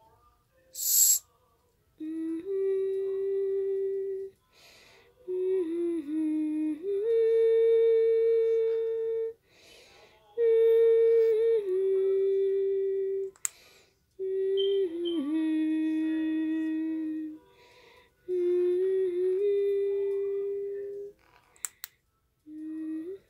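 A woman humming a slow, simple tune in long held notes, phrase after phrase, with short pauses for breath between them. A couple of sharp clicks sound, one near the middle and one near the end.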